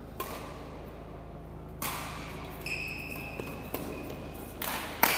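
Badminton rally: rackets striking the shuttlecock, about six sharp hits roughly a second apart, echoing in a large hall. A short high squeak comes about halfway through.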